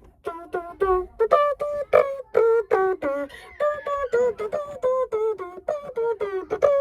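A person's voice making a vocal sound effect: a quick string of short, clipped notes, each starting with a click, about three or four a second, hopping between a few pitches like a little tune.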